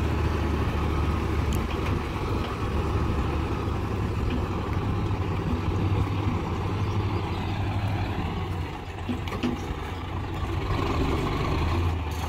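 Diesel engine of a twelve-wheel truck running steadily at low speed as it creeps along a dirt track under the load of a Caterpillar excavator on its deck: a constant low drone that eases slightly about eight seconds in.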